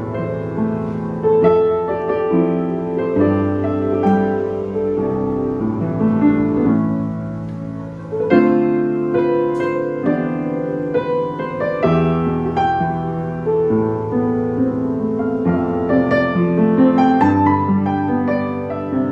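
Yamaha U3M upright piano played with both hands, being tried out: a flowing passage of chords under a melody. It drops softer about eight seconds in, then swells again.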